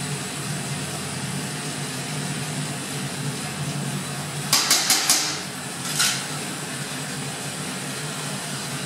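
Glassblower's bench torch flame hissing steadily over a low hum. About halfway through come four quick sharp taps, and one more about a second later.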